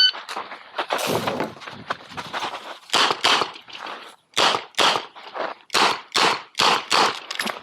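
Shot-timer start beep, then a string of 9mm shots from a Smith & Wesson 929 revolver. The first shot comes about a second in; from about three seconds on the shots follow quickly, a little under half a second apart.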